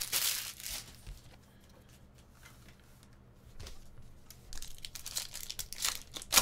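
Foil wrapper of a trading-card pack crinkling and tearing as it is ripped open by hand, the crinkling thickening over the last three seconds and ending in a loud crackle.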